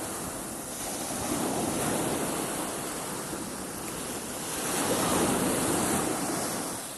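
Sea waves washing onto a beach, the surf swelling twice: once about a second in and again, louder, around five seconds in.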